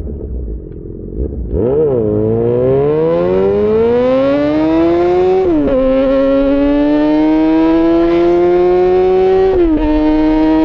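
Yamaha XJ6 S's inline-four engine through an SC-Project aftermarket exhaust, pulling away from low revs and accelerating with a steadily rising note. Two upshifts drop the pitch, about five seconds in and again near the end.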